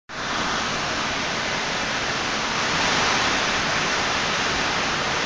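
Hard driving rain, a steady even rushing noise, heard from inside a shed.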